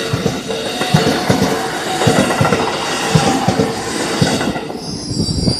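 An electric commuter train passing close by at speed, its wheels clattering rhythmically over the rail joints, with a level crossing bell ringing in a steady repeat. Near the end the clatter thins and a high wheel squeal comes in.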